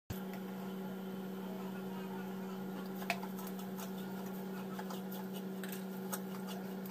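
Wooden spatula stirring fried onions and masala powder in a non-stick pan, making scattered light scrapes and taps against the pan, the clearest about three seconds in and again just after six. Under it runs a steady low hum.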